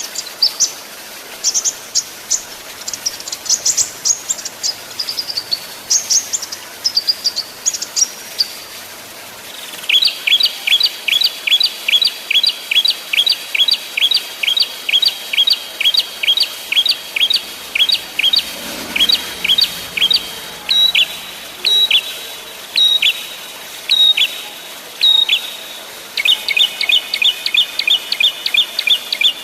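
Small songbirds calling: quick high chirps for the first eight seconds or so, then a sharp two-note call repeated about twice a second, spacing out to roughly one a second before a denser run of notes near the end.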